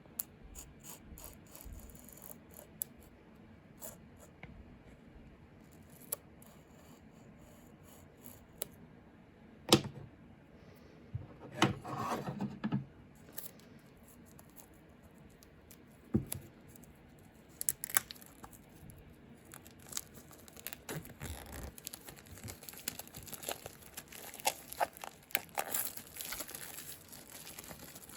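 Journal packaging being cut open with scissors and then torn and crinkled off by hand: scattered small snips and clicks, a sharp knock about ten seconds in, a burst of rustling just after, and denser crinkling and tearing over the last several seconds.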